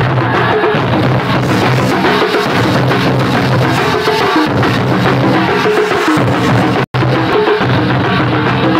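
Loud drum-led music with steady held tones underneath. The sound cuts out for an instant about seven seconds in.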